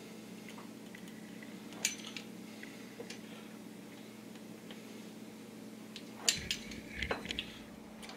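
Metal pizza-cutter wheel rolling through stacked noodle dough, giving a few light clicks and taps against the counter, most of them about six to seven and a half seconds in, over a faint steady hum.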